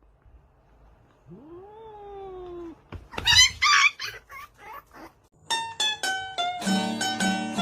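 A cat's meow that rises and then falls in pitch, followed by several short, shrill, wavering cries. Plucked-string music starts about five and a half seconds in.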